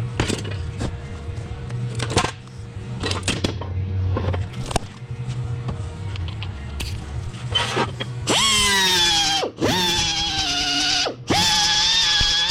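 Workshop handling knocks and clicks over a low hum, then a hand-held power tool run in three bursts about two-thirds of the way in: each start gives a high whine that drops in pitch as the tool bites into the metal, then holds steady.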